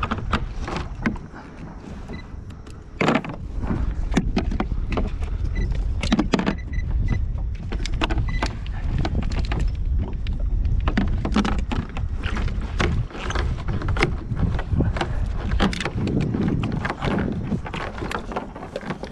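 Wind rumbling on the microphone, with frequent irregular knocks and splashes of choppy water against a plastic kayak hull.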